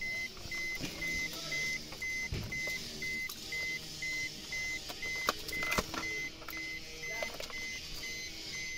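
Maruti Suzuki Dzire's dashboard warning chime beeping steadily, a short high beep about two to three times a second. Over it, a few sharp clicks of the plastic clock-spring unit and connectors being handled, loudest about five to six seconds in.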